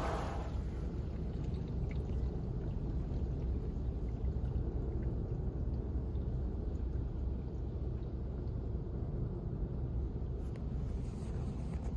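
Steady low rumble heard from inside a car waiting in an automatic car wash bay, after the loud brushing and spraying dies away at the very start.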